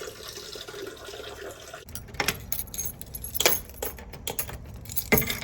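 Small metal objects jingling and clicking in irregular bursts, starting about two seconds in over a low steady background.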